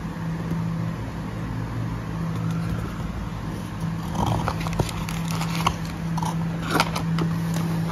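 Hands handling a cardboard box insert and pulling out a small zip-lock plastic bag, with scattered crinkles, scrapes and taps, busiest from about four seconds in. A steady low hum runs underneath.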